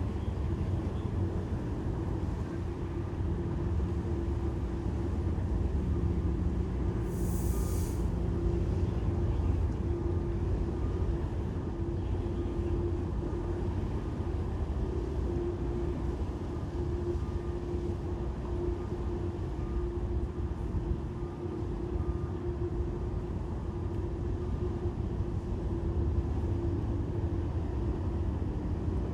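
Ship's machinery: a steady low rumble with a steady hum over it, and a brief hiss about seven seconds in.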